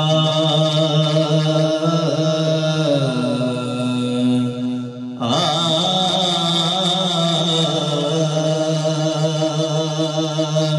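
A man singing the opening of an Urdu devotional kalam into a microphone, drawing out long held notes with slowly wavering pitch. One long phrase breaks off about five seconds in and a second long phrase follows at once.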